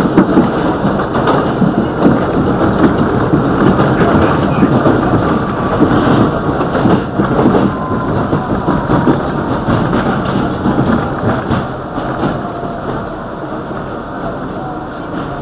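R62A subway car running on an elevated steel line, heard from inside the rear car: a loud, steady rumble with rapid clatter of wheels over the rails. It eases off from about twelve seconds in as the train slows into a station.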